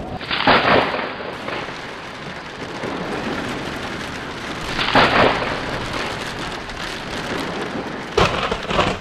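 Thunderstorm: a heavy downpour of rain, with loud claps of thunder about half a second in and again about five seconds in.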